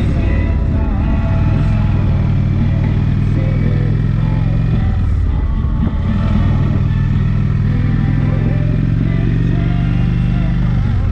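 Large touring motorcycle's engine running under way on the open road, a steady low drone whose note breaks up briefly about halfway through and then settles again.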